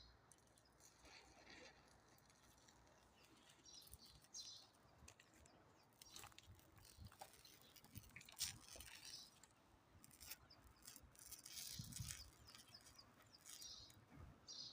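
Near silence with faint scattered clicks and taps, and a few short high chirps.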